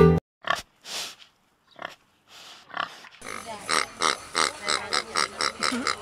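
Pigs grunting: a few scattered short grunts, then from about three seconds in a quick, even run of grunts, about five a second.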